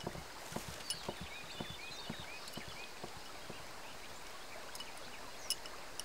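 Quiet outdoor ambience with a few short bird chirps and scattered light clicks, the sharpest about five and a half seconds in.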